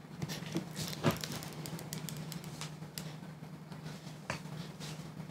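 Fingertips rubbing and pressing on a tablet's screen protector to push out trapped air bubbles: scattered light clicks and scrapes, over a steady low hum.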